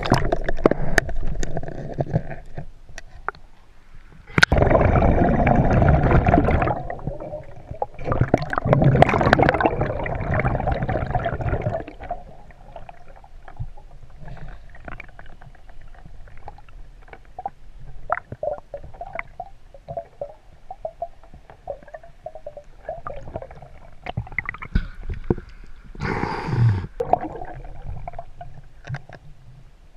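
Muffled water sound heard underwater: gurgling and bubbling, with two loud rushing bursts of a few seconds each in the first half, a shorter one near the end, and scattered clicks and knocks.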